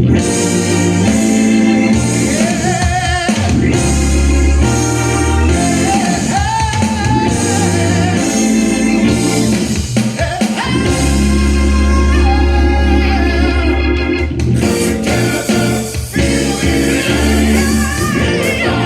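Music with a singing voice over organ-like chords and a deep, sustained bass line, played through hi-fi speakers for a sound test.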